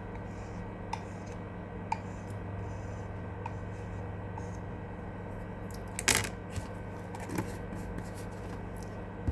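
Kitchen handling sounds: a few light clicks, then a louder brief rustle or scrape about six seconds in, over a steady low hum.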